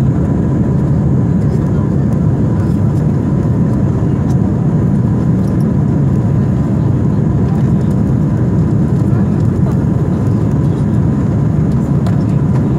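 Jet airliner cabin noise during the climb after takeoff: the engines and rushing air give a loud, steady low rumble, with a thin steady whine running over it.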